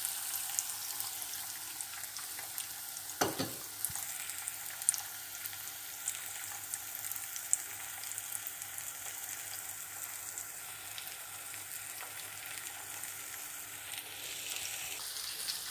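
Beaten egg frying in hot oil with onion and peppers in a pan, a steady sizzle with fine crackling. A single knock, such as a utensil against the pan, sounds about three seconds in.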